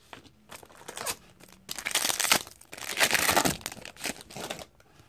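Foil wrapper of a 2018-19 Upper Deck Series 1 hockey card pack crinkling and tearing open, with the main tearing bursts about two and three seconds in.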